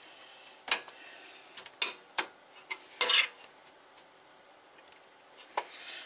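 Sharp metallic clinks and knocks of a screwdriver and screws against the sheet-steel drive bays of a computer case, a handful spaced irregularly, the loudest about three seconds in.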